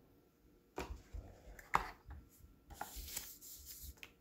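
Small cardboard product box being handled and searched: a string of taps, clicks and rustles, the sharpest about two seconds in.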